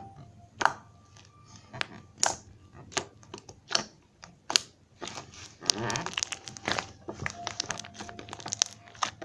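Pink slime with small add-ins squished and pressed by hand, giving irregular sticky pops and crackles.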